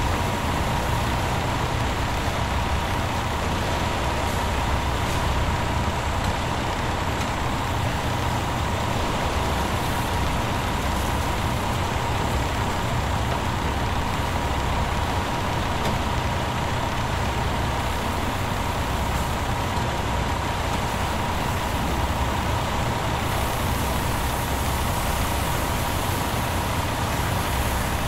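Cleaning truck's engine running steadily while its hose sprays water, a low rumble under a constant hiss, with a steady whine in the middle of the range.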